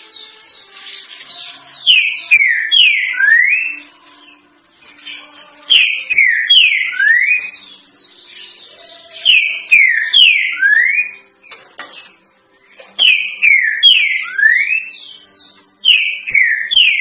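Green-winged saltator (trinca-ferro) singing the 'três notas boi' song: a loud phrase of clear whistled notes, falling slurs ending on a rising one, repeated five times about every three and a half seconds. It is the song used to teach young trinca-ferros.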